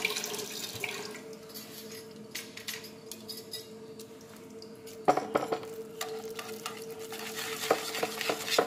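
Wire whisk stirring soft cream cheese into thick dulce de leche in a metal pot. It starts suddenly about five seconds in, scraping and clinking against the pot, and near the end settles into a regular beat of about three strokes a second. A steady hum runs underneath.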